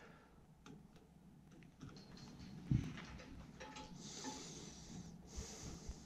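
Quiet handling noise from working on the heater's low-voltage wiring with a multimeter: scattered small clicks and rustles of wires and test leads, one dull thump a little before the middle, and two short hissy rustles in the second half.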